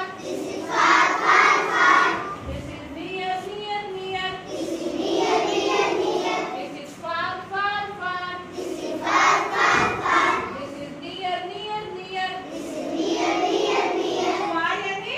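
A class of young children chanting words together in a sing-song unison, answering a single woman's voice that calls out between each chant. The loud group chant comes back about every four seconds.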